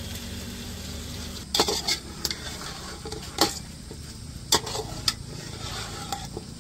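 A spoon stirring chicken, masala and yogurt in a large cooking pot over a low sizzle, knocking and scraping against the pot about seven times.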